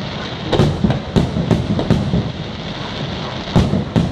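Aerial fireworks bursting in the sky: five sharp, echoing bangs, four of them close together in the first two seconds and one more near the end, over a steady hiss from the rising and burning shells.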